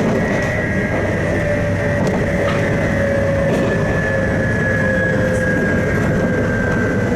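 JR East 719 series electric train running, a steady rumble under a high whine and a lower tone that both fall slowly in pitch. The uploader counts these cars as abnormal-noise cars for their jet-like whine.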